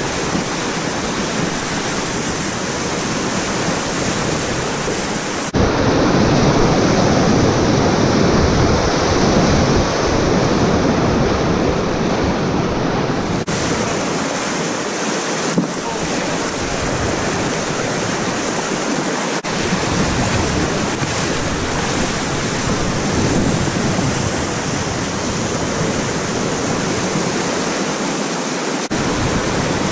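Whitewater rapids rushing and splashing close around a packraft, with water and wind buffeting the boat-mounted camera's microphone. The roar jumps louder about five seconds in and shifts abruptly a few more times.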